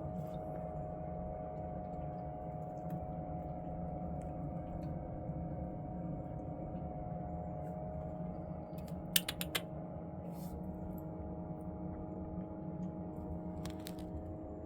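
Small electric fan-type ice air cooler running with a steady motor hum. A quick cluster of sharp clicks comes about nine seconds in, and another near the end.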